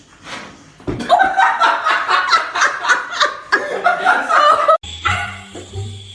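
A person laughing in rapid repeated bursts for several seconds. Just before the end it cuts abruptly to another clip with background music.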